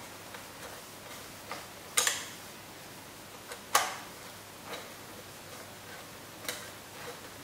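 Hand tools working the carburetor mounting bolts on a petrol RC buggy: scattered small metal clicks and taps of a hex driver against bolts and metal parts, the sharpest a double click about two seconds in and a single one near four seconds in.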